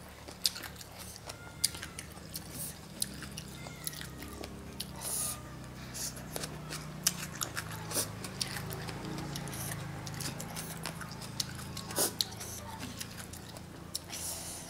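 Close-up chewing and biting of a mouthful of green papaya salad with noodles, wet mouth sounds broken by many short sharp clicks, a few of them louder.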